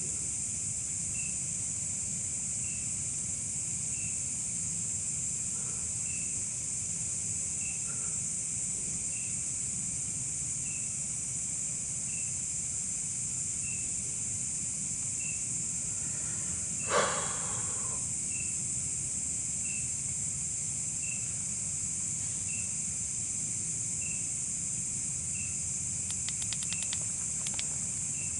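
Steady high-pitched chorus of night insects, with one short chirp repeating about every one and a half seconds. A little past halfway a single louder sound lasting about a second stands out.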